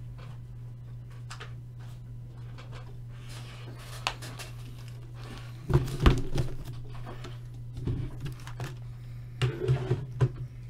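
Steady low electrical hum, with scattered faint clicks, a couple of loud thumps about six seconds in and a few knocks near the end.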